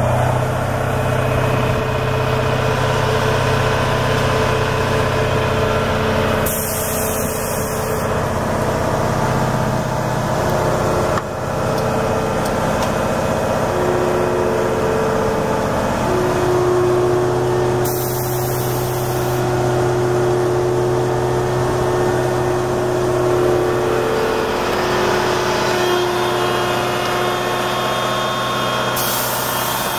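Diesel engine of a CMI tracked road milling machine (cold planer) running steadily with the machine standing still, heard at close range. A brief high hiss comes through three times.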